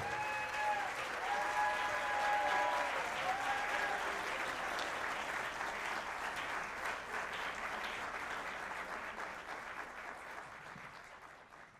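Audience applauding at the end of a song, with a few voices cheering over the clapping in the first few seconds; the applause thins out and fades away near the end.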